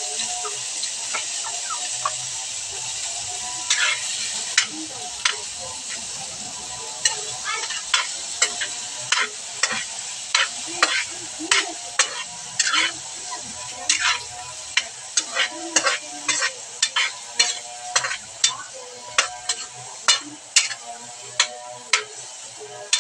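Cubed squash frying in hot oil in a wok, sizzling steadily and slowly easing. From about four seconds in, a metal spatula stirring it clacks and scrapes against the wok, about once or twice a second.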